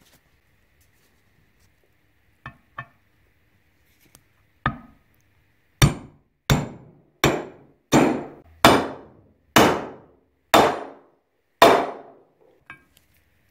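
Hammer blows on a socket used as a drift, driving a ball bearing into its seat in a reel mower's metal side frame: a few light taps, then eight firm strikes just under a second apart, each ringing briefly.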